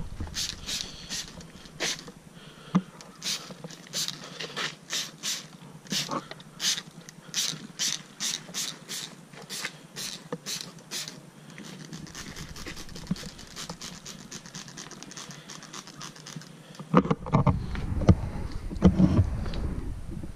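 Hand trigger spray bottle being squeezed again and again, a couple of quick hissing squirts a second, misting a chemical rusting solution onto a bare steel motorcycle fuel tank. The squirts come faster and fainter for a few seconds past the middle, and a louder low rumble comes in near the end.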